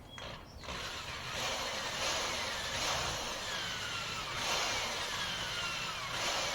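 Power tool running under load into the wall framing, starting about half a second in. Its pitch sags repeatedly, about every second and a half, as it bites in.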